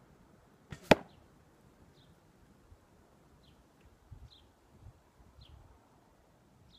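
An arrow shot from a hickory bow at a 3D deer target: a soft snap, then a fraction of a second later one loud, sharp smack, about a second in. Small birds chirp faintly throughout.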